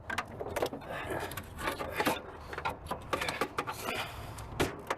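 Metal parts scraping, creaking and clicking irregularly as a part is pried loose from a car with a pry tool, in a series of short rasps and knocks.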